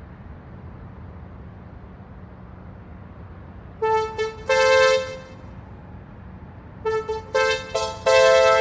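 A steady low hum, then groups of short, bright horn-like honks at a few different pitches: a cluster about four seconds in and another, louder run near the end.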